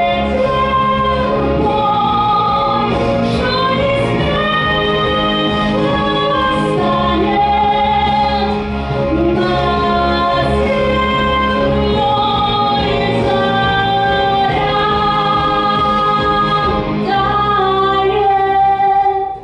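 A woman singing a slow song in long held notes with vibrato over an accompaniment track with a steady bass line; the singing and the music stop abruptly at the very end.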